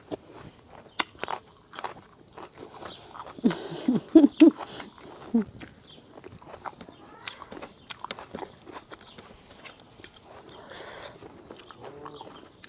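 Close-miked eating: chewing and crunching bites of a spicy seafood rice-noodle salad with shrimp and squid, with many sharp crunchy clicks and a few brief mouth noises around four to five seconds in.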